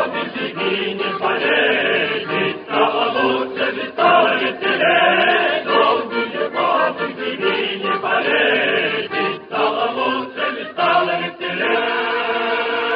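A choir singing a song on an old, narrow-band 1939 film soundtrack. It closes on a long held chord near the end.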